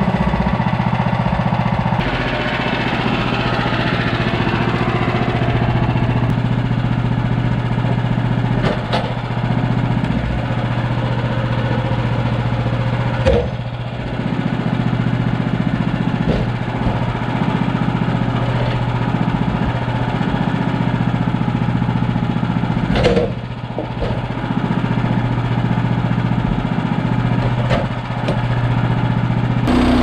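Woodland Mills HM130MAX bandsaw mill's gas engine running steadily, with a few short knocks.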